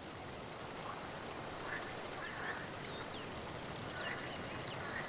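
An insect chirping: a high, thin note pulsing evenly about two or three times a second, with a few faint short chirps under it.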